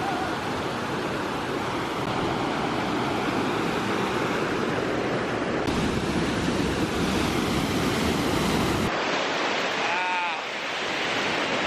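Running water of a small stream, a steady rushing hiss. About nine seconds in the deep rumble drops away, leaving a thinner hiss.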